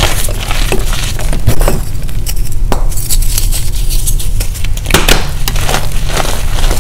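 Lumps of gym chalk crunching and crumbling between the fingers: a dense crackle of small snaps. The crunching thins out about two seconds in and picks up again about five seconds in.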